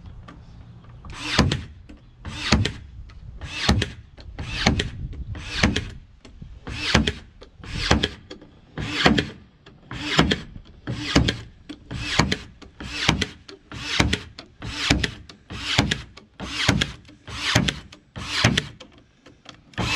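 Ryobi 18V One+ AirStrike cordless brad nailer firing 18-gauge brad nails into a wood strip on OSB. About seventeen shots in a steady row, roughly one a second.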